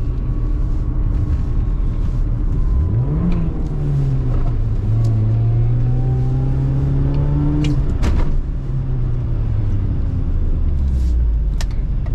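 R53 Mini Cooper S's supercharged four-cylinder engine pulling on a test drive. It revs up about three seconds in and holds a steady, slowly climbing pull. Near eight seconds in it drops in pitch with a sharp knock, then settles to a lower steady drone.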